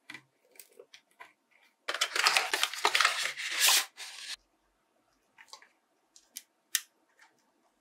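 Paper and cardboard packaging rustling and crinkling loudly for about two and a half seconds as a mug warmer is pulled out of its box and paper sleeve, with scattered light taps and knocks of handling before and after.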